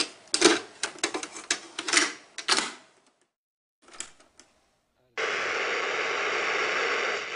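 A rapid, irregular run of sharp clacks, about four a second, lasts roughly three seconds, with a couple more about four seconds in. A steady hiss of static then cuts in suddenly about five seconds in.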